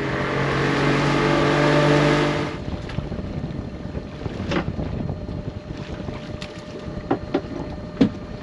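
Boat's outboard motor running under way with wind and water noise, then throttled back abruptly about two and a half seconds in. A few sharp knocks follow as the boat comes up to the pot buoy.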